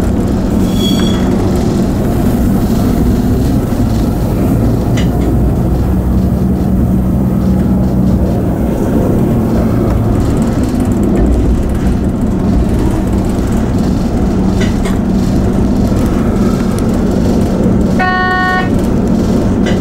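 Regional train running along the track, heard from just behind the driver's cab: a steady rumble with a constant low engine drone. A short high tone sounds about a second in, and another brief pitched tone near the end.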